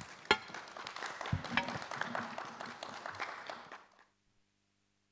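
Audience applauding, separate claps heard one by one, cutting off abruptly about four seconds in.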